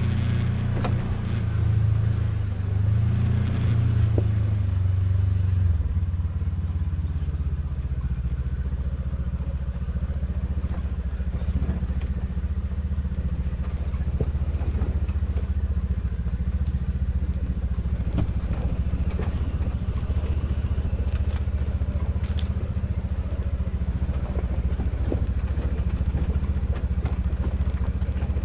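A vehicle engine running steadily at low revs, its note dropping slightly about six seconds in, with scattered light knocks and clatter.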